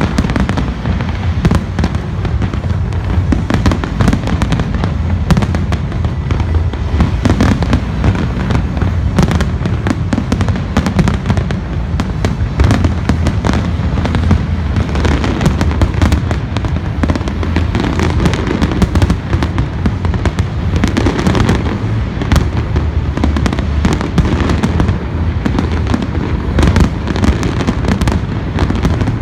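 Large fireworks display going off continuously: many rapid, overlapping bangs over a steady low rumble, with no pauses.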